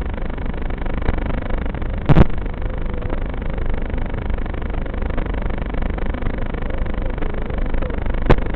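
FPV racing drone in fast flight: steady rushing wind and a faint wavering motor whine, with two sharp knocks, one about two seconds in and one near the end.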